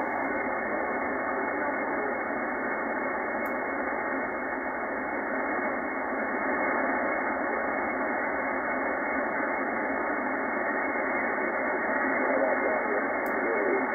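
Shortwave receiver audio on the 20-metre band in upper sideband: steady, narrow-band static hiss with a weak single-sideband voice buried in it, barely readable above the noise.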